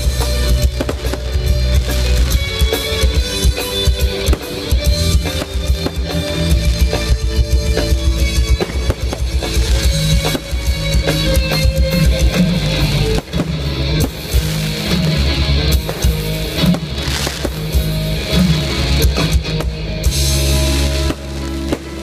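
Loud music with drums and guitar over fireworks, with firework shells bursting and crackling in a dense, irregular stream throughout.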